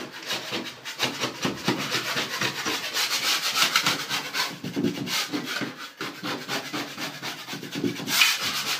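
Drywall mud knife scraping along a cracked drywall seam in quick repeated strokes, knocking the loose paint and joint compound off the surface.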